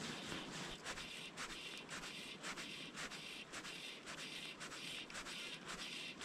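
Faint, irregular soft scraping and rubbing, a few strokes a second: fly line being stripped in by hand through the rod guides to work the fly.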